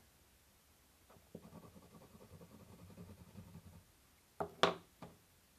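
Wax crayons clicking against each other and the tabletop as one is picked out of the pile, with two sharp clicks near the end.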